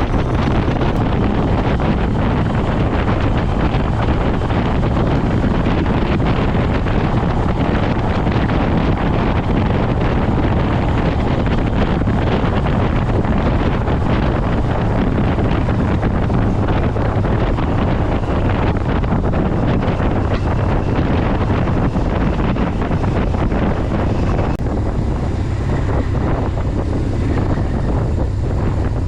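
Wind rushing over the microphone of a riding motorcycle, with the steady drone of the bike's engine underneath. The wind eases a little near the end.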